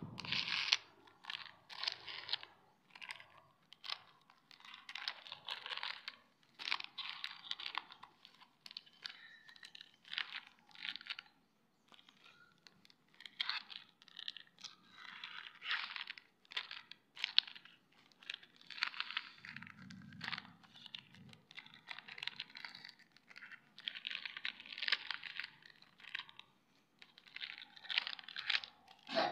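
Plastic wrappers of Cookania WayFar wafer packets crinkling in irregular bursts as hands shuffle and line up the packets.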